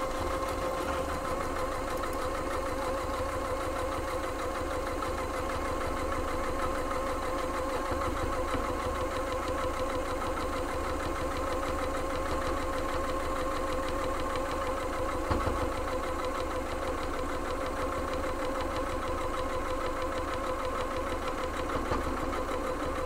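Electric sewing machine running at a steady speed, stitching one long straight seam through layered patchwork fabric: an even motor hum that holds its pitch without pausing.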